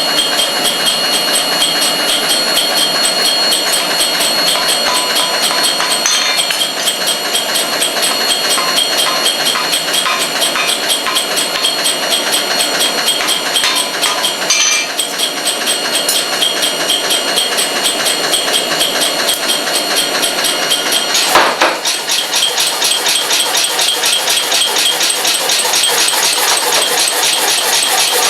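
Blacksmith's hammer working wrought iron chain at near welding heat: a fast, even run of blows with steady metallic ringing over a continuous noise, and one single louder strike about three quarters of the way through.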